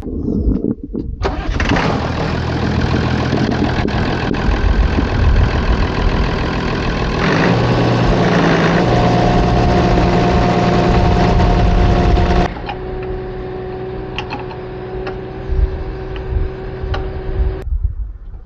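An engine starts and runs loudly with a steady hum. About twelve and a half seconds in it drops suddenly to a quieter steady running, which cuts off shortly before the end.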